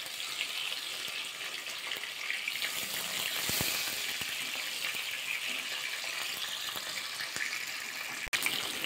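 Rohu (rui) fish steaks shallow-frying in hot mustard oil in a kadai: a steady sizzle with fine crackling as the pieces brown to a reddish colour.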